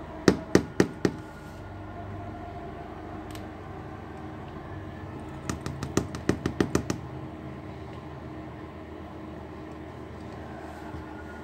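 Sharp clicks or taps on hard material in two runs: four about a quarter second apart at the start, then about ten in quick succession around six seconds in. A steady low hum runs beneath.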